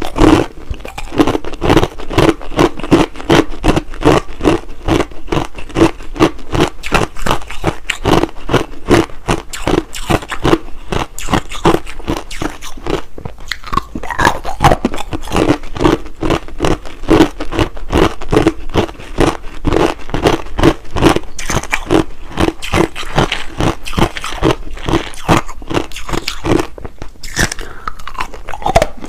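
A person biting and chewing hard, clear crushed ice close to the microphone: a steady run of sharp crunches, several a second.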